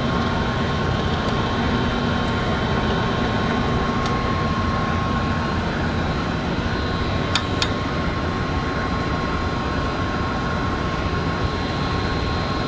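Benchtop drill press running steadily with a high motor whine. Two sharp clicks come a little past halfway.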